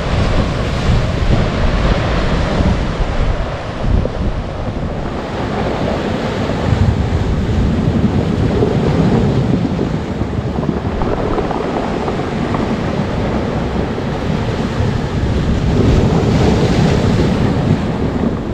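Surf washing up a cobble beach, the waves tumbling the loose cobblestones against each other, with wind buffeting the microphone. The wash swells louder about seven seconds in and again near the end.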